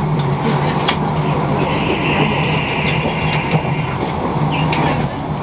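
Passenger train running along the track, heard from inside the carriage: a steady rumble of wheels on rail, with a sharp click about a second in and a high whine for a second or so around the middle.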